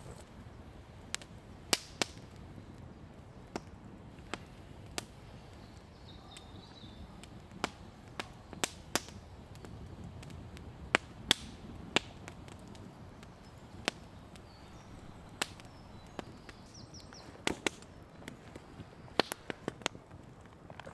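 Campfire crackling, with irregular sharp pops of burning wood, several in quick succession near the end.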